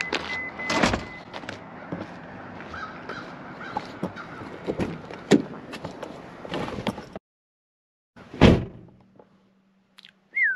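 Footsteps and small handling clicks outdoors, with a crow cawing a few times in the background. About eight and a half seconds in, the 2009 Subaru Legacy's door shuts with one loud thud, and a faint steady hum follows.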